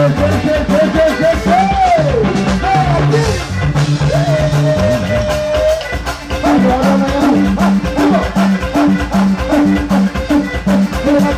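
Music with a steady drum-kit beat and a stepping bass line under a lead voice singing long, gliding notes.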